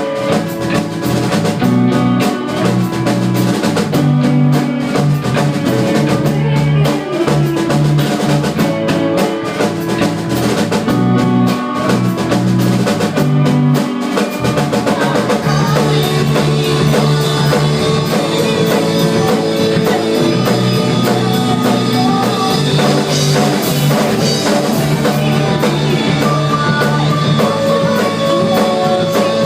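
Rock band playing a song at rehearsal, drum kit and guitar together, the sound growing fuller and brighter about halfway through.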